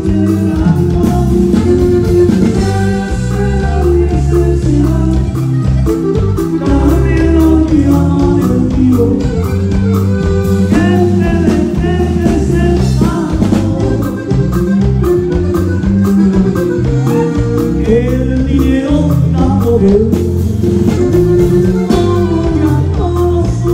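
Live band playing amplified dance music over a PA: electric bass, an even drum beat and singing.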